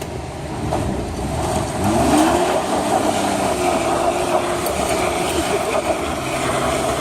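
Truck engine revving up about two seconds in as the truck pulls away, its pitch rising and then holding steady over a constant rumble.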